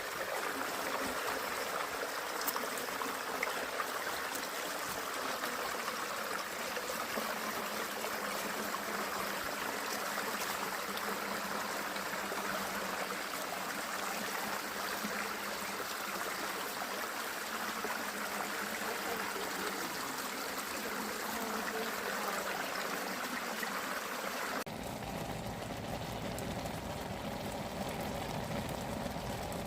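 Steady rush of flowing water. About 25 seconds in the sound changes abruptly: the hiss thins and a low rumble comes in.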